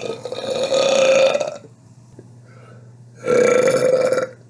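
Two long, loud burps: the first lasts about a second and a half, and the second starts about three seconds in and lasts about a second.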